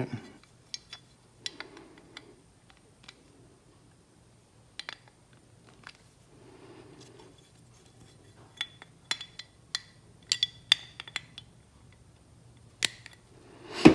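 Scattered light metallic clicks and clinks of a steel socket against a Ford flathead fuel pump body and its new brass check valves as the valves are pressed in by hand to seat them flush. The clicks come more often a little past halfway, with a louder clink near the end.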